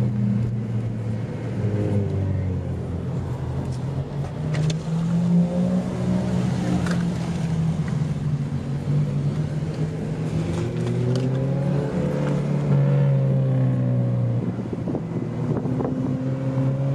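Car engines running at low speed, their pitch rising and falling.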